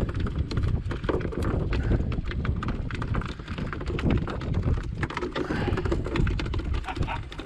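Rapid, irregular tapping and knocking on a small open fishing boat, over a low rumble of wind on the microphone.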